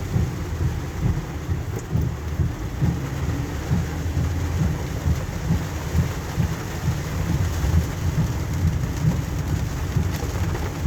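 Heavy rain drumming on a car's roof, heard from inside the moving car as a dense, unbroken low rumble full of rapid small hits.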